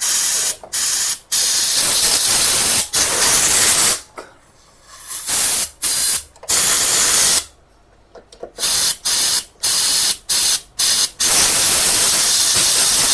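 Compressed air hissing in repeated on-off bursts through the fuel pump assembly of a Bajaj Pulsar NS160, blowing out the dust that was clogging its holes. The blasts are short and long, with a few quiet gaps, and end in one long continuous blast.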